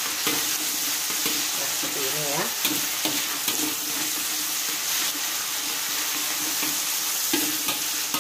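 Minced pork and seasoning paste sizzling in oil in a wok, with a metal spoon repeatedly scraping and pressing against the pan as it is stir-fried.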